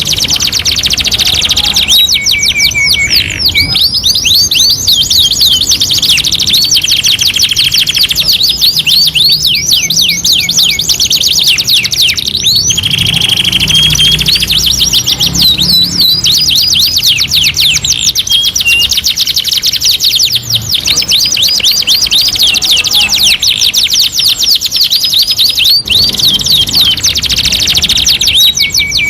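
Domestic canary singing a long continuous song of rapid trills and rolls, fast strings of repeated sweeping notes broken now and then by a short held whistle.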